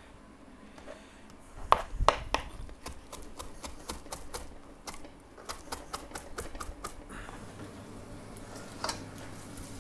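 Kitchen knife chopping fresh parsley on a wooden chopping board. A few loud knocks come about two seconds in, then quicker, lighter chops at about four or five a second until about seven seconds in.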